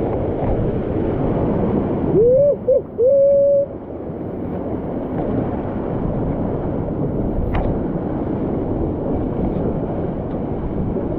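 Steady rush of water in a mountain canyon torrent. About two seconds in, a loud hoot-like tone rises in pitch, breaks briefly and is held for about a second and a half.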